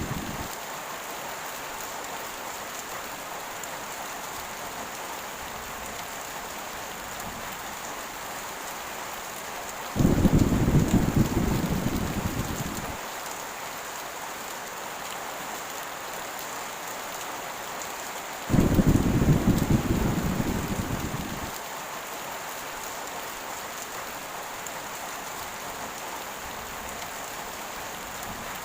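Heavy rain falling steadily, with two deep rolls of thunder, about ten and eighteen seconds in, each starting suddenly and fading away over about three seconds.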